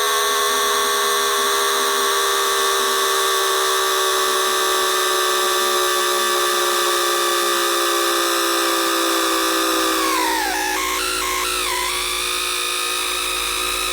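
Times Electric tPower-TN28 VVVF traction inverter and motor current picked up through an inductive coil, so only the electrical whine is heard as a stack of electronic tones, some gliding slowly lower. About ten seconds in, the tones sweep down and jump in steps as the inverter's switching pattern changes: the 'screaming' this inverter is known for.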